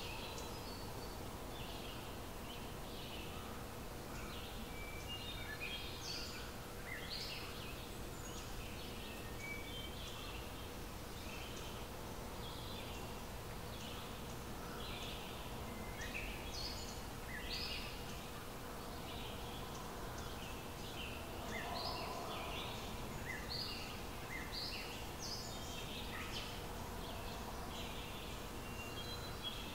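Small birds chirping and calling in many short, separate notes over a steady low background noise with a faint steady hum.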